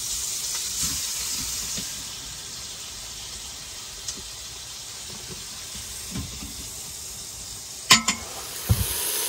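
Meat frying in a hot pan with a steady sizzle. Near the end there is a sharp clink, then a dull knock.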